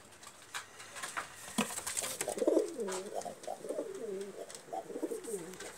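Domestic pigeons cooing in a pigeon loft: a run of low, wavering coos begins about a second and a half in and carries on, the courtship cooing of birds pairing up. A few light clicks and taps come before it.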